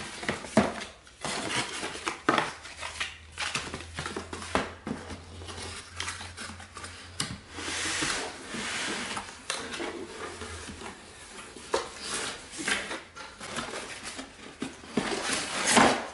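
Cardboard packaging being handled: flaps folded open and a cardboard insert slid out, with irregular scraping, rustling and knocks of cardboard on cardboard. The loudest knocks come at the start and again near the end.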